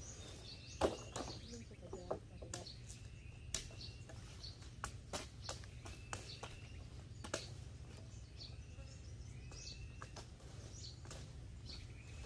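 Machetes chopping brush and branches: irregular sharp knocks, several a second at times and then sparser. Birds chirp faintly now and then.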